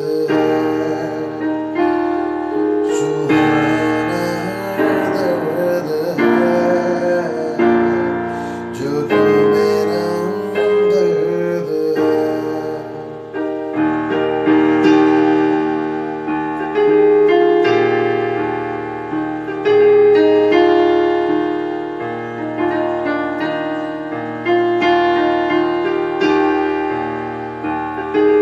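Yamaha electronic keyboard played with both hands in a piano voice: held chords changing every second or two over a moving bass line, carrying the melody of a Hindi romantic song.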